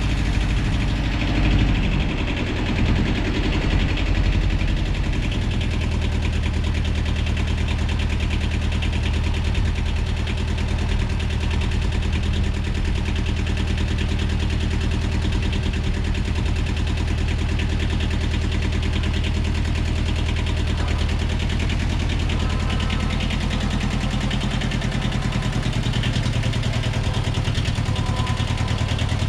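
An engine running, its note shifting for the first few seconds and then settling into a steady, even run.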